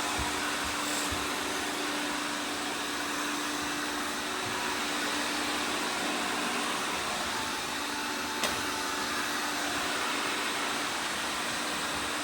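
Several robot vacuum cleaners running together, a steady whir of suction motors and brushes with a faint hum underneath. A single sharp click sounds once about eight seconds in.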